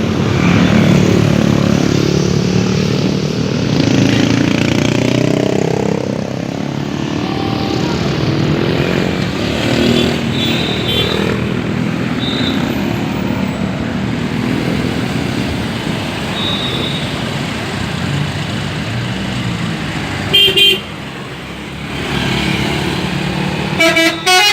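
Bus engine running, its pitch rising over the first few seconds, with short blasts of a multi-note telolet horn: a loud chord about twenty seconds in and a quick run of notes near the end.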